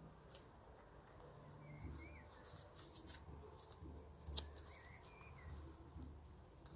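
Faint handling noise of black leather driving gloves being pulled on and tugged into place, with soft rustling and a few sharp clicks; the loudest click comes a little past the middle. Short, faint chirps come twice, about two seconds in and again about five seconds in.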